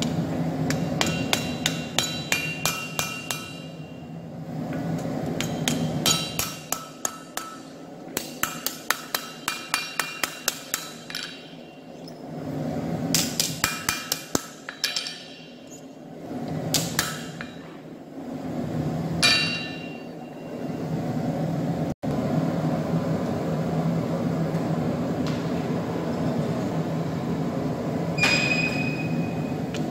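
Hand hammer forging a red-hot nadae blade on a steel anvil: quick runs of blows, several a second, with the anvil ringing after each, broken by short pauses. The hammering stops about two-thirds through, leaving a steady low hum, and a single clank comes near the end.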